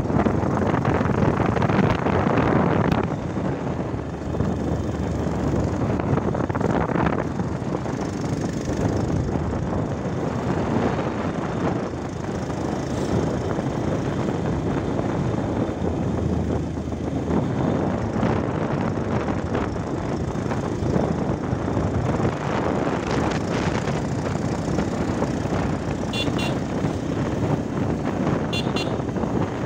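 Steady wind rush over the microphone and running noise from a motorbike in motion on a paved road. Two short clusters of faint high pips come near the end.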